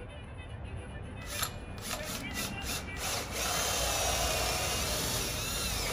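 Cordless drill boring bolt holes into a wooden beam. A few short trigger bursts come about a second in, then the drill runs steadily for the last three seconds, its whine wavering as the bit works through the wood.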